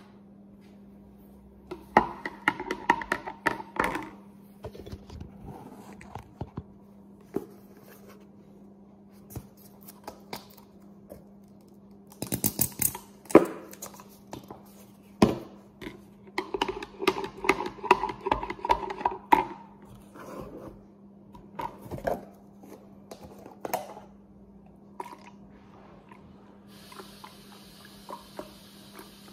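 Kitchen handling sounds: knocks, clinks and scrapes of a cup and containers on a countertop in several bursts over a steady low hum. Near the end comes a steady pour of milk from a carton into a tumbler.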